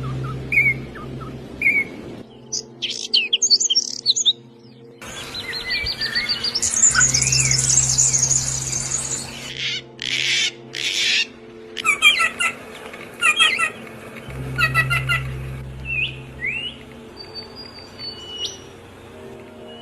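Songbirds chirping and singing in a string of short clips that change abruptly every few seconds: fast trills in one, series of repeated short chirps in another. Steady background music plays underneath.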